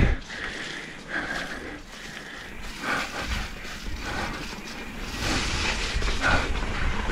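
Mountain bike riding down a rooty dirt trail: tyres rolling and the bike rattling over bumps, with a few louder rough stretches, and the rider breathing hard.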